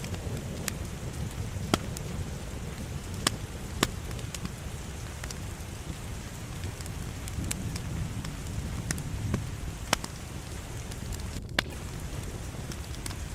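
Wood fire burning in a fireplace: a steady low rush of flames with scattered crackles and about five sharp, loud pops.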